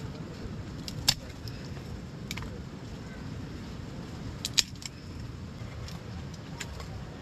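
Dry sticks being handled and laid down for a fire, giving a few sharp clicks and knocks. The two loudest come about one second in and about four and a half seconds in, over a steady low background rumble.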